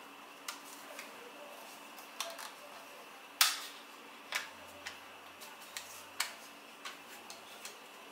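Sharp plastic clicks and knocks, about a dozen at irregular intervals, the loudest about three and a half seconds in, as a Smove smartphone gimbal's arm and phone clamp are twisted and folded by hand.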